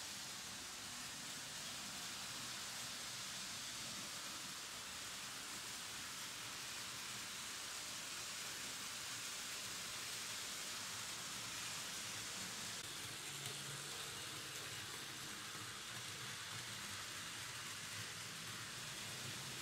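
Märklin H0 model trains with BR50 steam locomotives running on vintage tinplate M-track, giving a steady rushing noise of wheels rolling on the metal rails.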